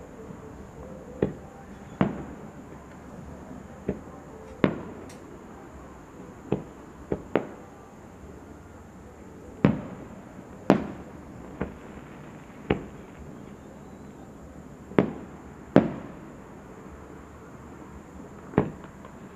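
Aerial firework shells bursting in a display: about fourteen sharp bangs at irregular intervals, each followed by a short echoing tail.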